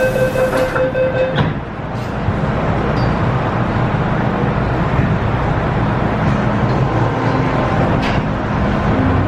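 MTR Tsuen Wan Line electric train getting under way: a steady tone that stops with a knock about a second and a half in, then running noise that builds, with a low motor tone joining in the second half.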